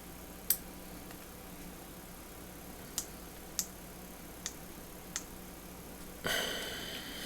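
Small metal ratchet parts and a hand tool clicking together in a few sharp, separate clicks spread over several seconds while the ratchet head is pried at for disassembly, followed near the end by a second-long rasping scrape.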